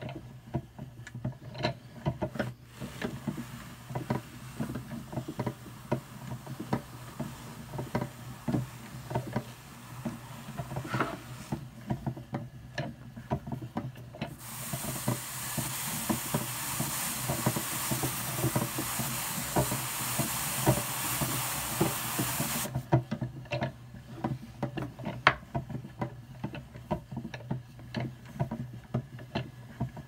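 Brother Standard hand-cranked drum carder with fine carding cloth turning, with a fast, uneven ticking and rustle as the wire teeth take up Targhee wool. From about halfway to three-quarters through, a brush held against the spinning large drum packs the fiber down, giving a loud steady hiss that then stops suddenly.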